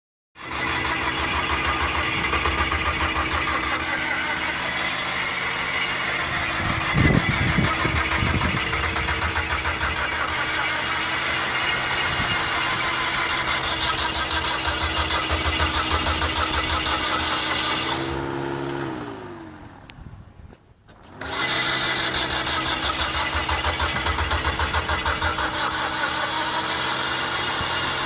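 Mazda Familia Sport 20's starter cranking the engine over without it catching, a crank-no-start that was traced to the engine having lost its timing. The cranking runs steadily for a long stretch, falls in pitch and winds down, then starts again sharply a second or so later.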